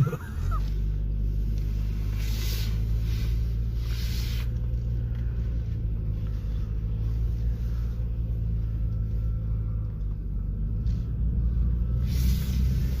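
Vehicle engine idling steadily, with a hissing rush rising over it from about two seconds in to past four seconds, and again near the end.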